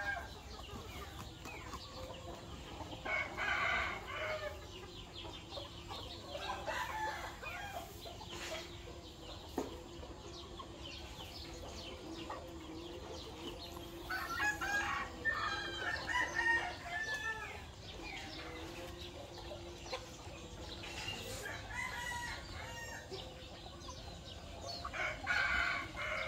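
A flock of chickens clucking while they feed, with roosters crowing several times: once about 3 seconds in, again midway through, and once near the end.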